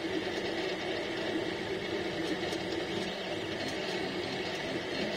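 Desktop FDM 3D printer running mid-print: a steady mechanical whir of its motors, with a few faint ticks.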